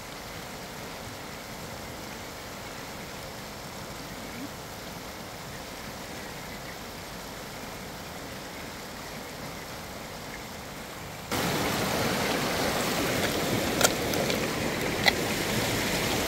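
Steady rush of flowing shallow river water. About eleven seconds in it jumps suddenly louder and stays so, with two sharp clicks near the end.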